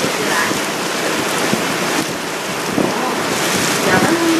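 Wind buffeting the microphone over the rush of water from a sightseeing boat under way, a steady, even noise.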